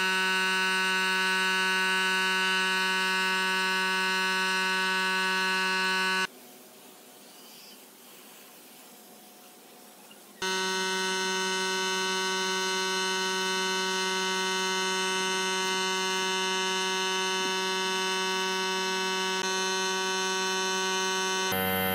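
Steady electric buzzing hum, one pitch with many overtones, that cuts out suddenly for about four seconds partway through and then resumes; the pitch pattern changes just before the end.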